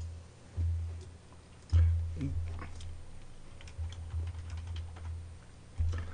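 Several dull low thuds of things bumping the table while eating, with faint light clicks between them.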